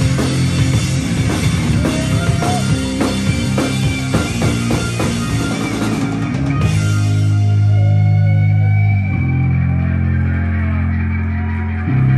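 Rock band playing live on distorted electric guitar, electric bass and drum kit. About six and a half seconds in the drums stop and the guitar and bass hold long, low ringing notes, moving to a new chord around nine seconds in and again just before the end.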